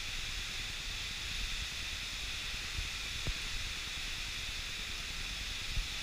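Steady rushing of a large waterfall in full flow, with a small knock about halfway through.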